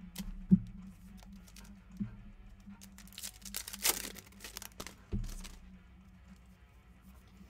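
Foil wrapper of a Legacy Football trading-card pack torn open and crinkled, about three seconds in, as the cards are pulled out. A few dull knocks come before and after it.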